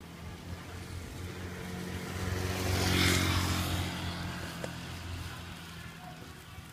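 A motor vehicle passing by, growing louder to a peak about three seconds in and then fading away, over a steady low hum.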